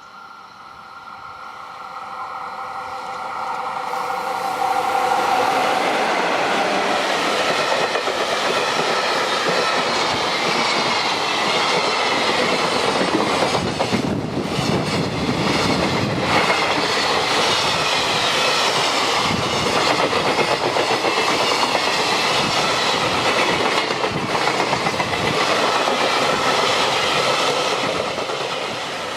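Freight train hauled by a JR EF66 electric locomotive approaching and passing close by: the sound swells over the first five seconds, then the wagon wheels clatter steadily over the rail joints, easing slightly near the end.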